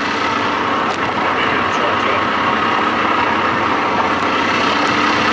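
Johnson-Evinrude outboard motor running steadily, just after firing right up on a weak battery wired through long cables.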